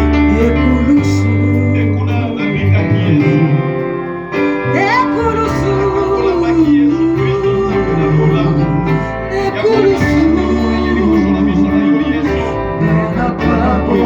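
Church worship music: singing over a band with a steady bass line and keyboard, the bass notes changing every second or two.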